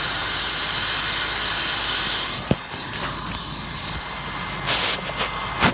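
Medical helicopter running with a steady loud hiss of turbine and rotor noise that eases off slightly about two seconds in. A few sharp clicks or knocks come through near the middle and end.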